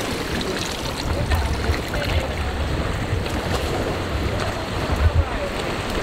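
Muffled rushing water heard underwater in a swimming pool, with a steady low rumble and a couple of brief louder bumps near the end.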